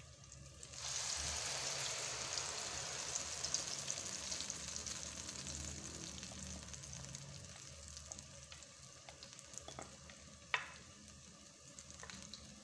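Wet moong dal batter, ground with milk, poured into hot ghee in a kadhai and sizzling loudly. The sizzle starts about a second in and slowly dies down, with a single sharp click near the end.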